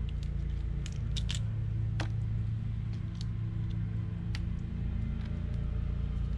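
Several sharp cracks and snaps of a mud crab's shell and legs being broken apart by hand while it is cleaned, over a steady low hum.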